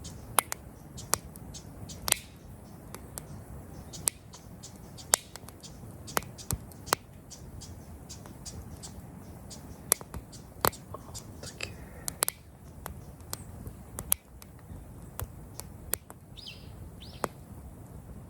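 Campfire wood crackling: sharp, irregular pops and snaps over a low, steady background.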